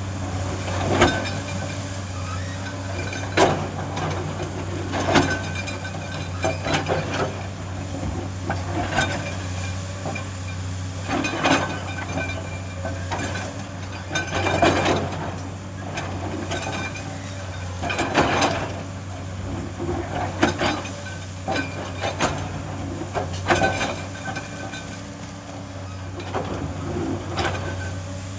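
A heavy construction machine's engine runs steadily under irregular clanks and knocks that come every second or two.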